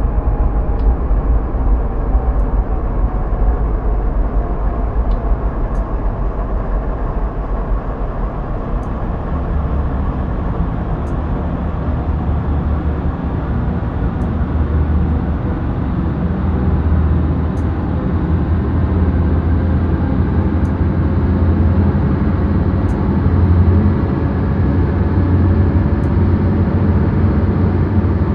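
A train in steady motion: a continuous low rumble with faint tones drifting slowly downward above it, a little louder in the second half.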